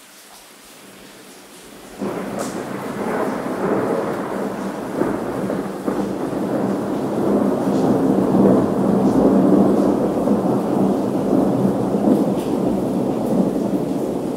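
Rain falling with a soft hiss; about two seconds in, thunder breaks in suddenly and keeps rumbling loudly over the rain, swelling a little midway.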